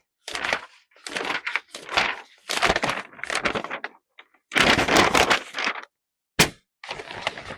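Foley of a book's cardboard cover being opened: a series of papery rustling and flapping strokes, with one sharp snap about two-thirds of the way through.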